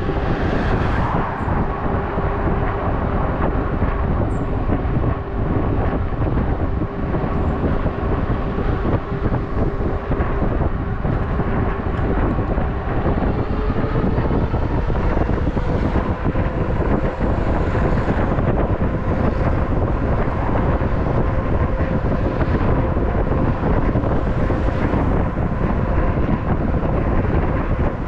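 Wind rushing over the microphone and street-traffic noise during a bike ride, a steady low rumble throughout. A faint steady whine runs underneath and rises slightly in pitch about halfway through.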